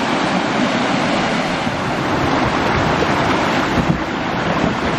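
River water rushing steadily down a rocky cascade.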